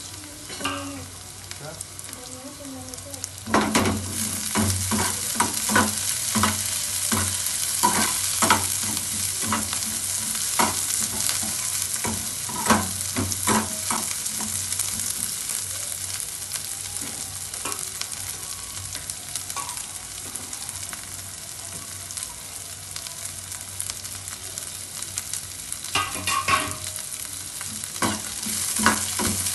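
Onion, carrot and green bell pepper frying in oil in a metal pan, sizzling, while a slotted metal spatula stirs them, scraping and clicking against the pan. The sizzle gets louder about three and a half seconds in; the spatula clicks come thick at first, thin out in the middle and pick up again near the end.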